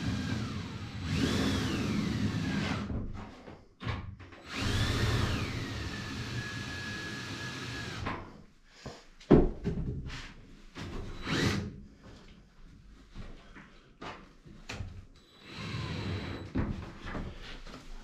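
Cordless drill with a hole saw cutting through plasterboard in a few short runs. Each time the motor whine climbs as it speeds up, then drops and holds lower as the saw bites under load. After that come scattered knocks and clicks of pipe fittings being handled.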